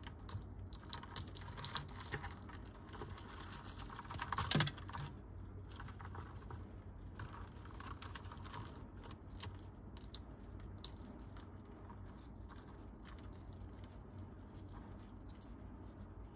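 Irregular light clicking and scratching of beetle claws on cork bark and a plastic jelly feeding cup as a Japanese rhinoceros beetle and a Forster's stag beetle scramble. The clicks are busiest in the first few seconds, with a louder scrape about four and a half seconds in, and then come only now and then.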